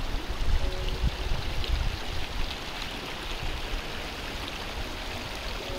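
Shallow mountain stream running over stones and gravel, a steady rushing babble.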